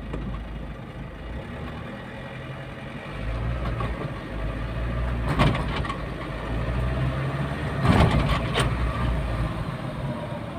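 Kia Sportage CRDi common-rail diesel running as the SUV drives and picks up speed, heard from inside the cabin, growing louder about three seconds in. Two sharp knocks come about midway.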